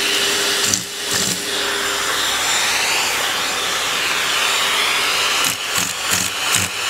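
Vacuum cleaner running, air rushing through the hose nozzle that the cat holds against its fur. The suction sound wavers in pitch, and from about two-thirds of the way in it turns uneven and fluttering.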